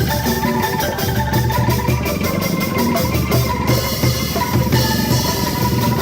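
Angklung ensemble playing a tune: shaken bamboo tubes rattle out the melody in quick repeated strokes over a regular low beat.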